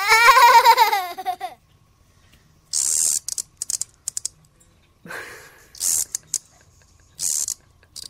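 A child's drawn-out, wavering squeal lasting about a second and a half, the loudest sound. It is followed by three short, high, raspy hissing bursts a few seconds apart, with small clicks between them.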